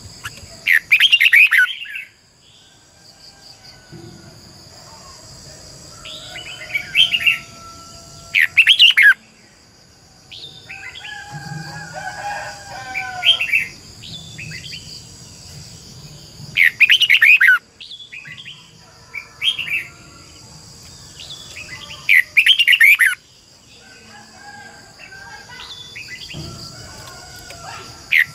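Red-whiskered bulbul singing: short, loud phrases of rapid warbling notes, repeated every few seconds with pauses between.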